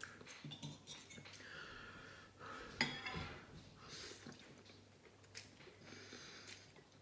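A person slurping spicy Korean ramen noodles from a bowl, with short sniffs and breaths between mouthfuls. A sharp clink of cutlery against the bowl, the loudest sound, comes just under three seconds in.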